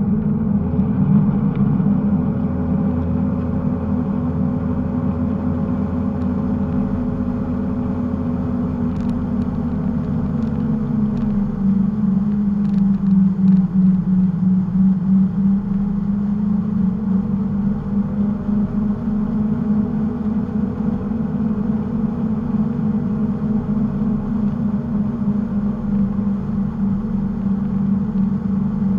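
Towboat engine running steadily under way, pulling a wakeboarder, with water churning in the wake. The engine pitch dips and settles slightly a little before halfway.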